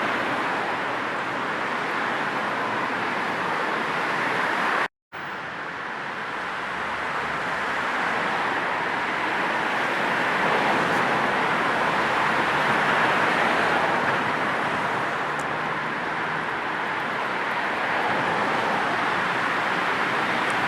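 Steady road traffic noise, an even rush of passing vehicles with no single engine or horn standing out. About five seconds in the sound drops out to silence for a split second, then resumes.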